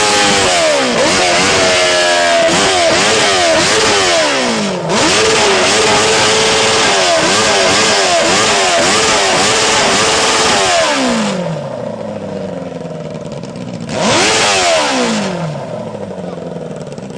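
Sport motorcycle engine free-revving hard while standing still, blipped up again and again and let fall back, for about eleven seconds. It then settles to idle, with one more sharp rev near the end.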